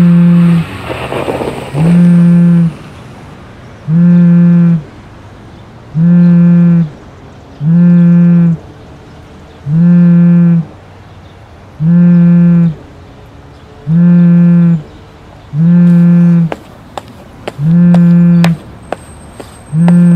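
A mobile phone's vibrate alert buzzing in a regular pattern: a low buzz about a second long, repeating every two seconds. A few sharp clicks come in near the end.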